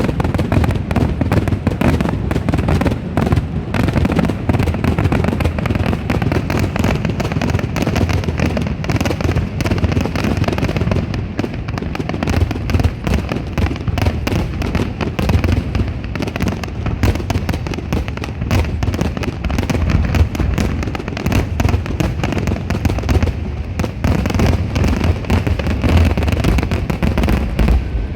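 Aerial fireworks going off in a dense, continuous barrage: rapid booms and crackling packed together with hardly a break.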